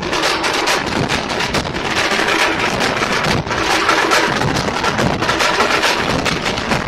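A tamte ensemble: many stick-beaten tamte frame drums and large bass drums playing together in a fast, dense rhythm, loud throughout.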